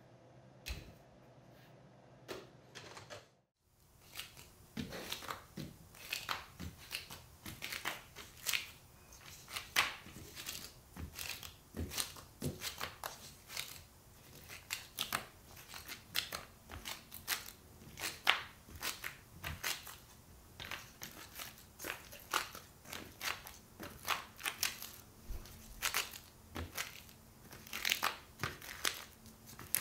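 Baked macaron shells being peeled off a baking sheet by gloved hands: a quick, irregular string of small crisp crackles and ticks, several a second, starting about four seconds in.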